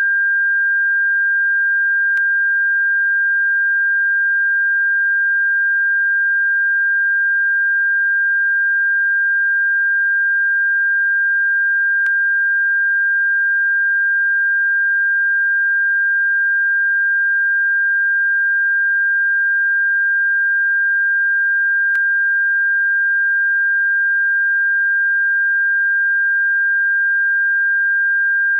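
Bird-repellent tone: a single steady, unwavering pure tone of fairly high pitch, with a faint click about every ten seconds.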